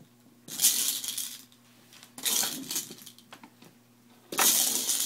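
Plastic Easter eggs rattling and clattering on a wooden tabletop as they are handled, in three bursts of about a second each.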